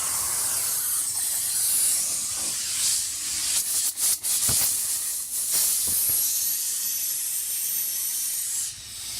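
Compressed air hissing loudly out of the open outlet valve of an Atlas Copco SF4 air compressor, venting freely with no hose attached. The hiss breaks off briefly twice about four seconds in and drops in level near the end.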